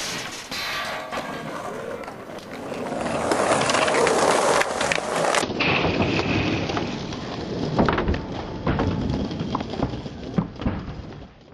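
Skateboard wheels rolling and grinding over a riding surface, with a few sharp clacks of the board and trucks hitting down in the second half.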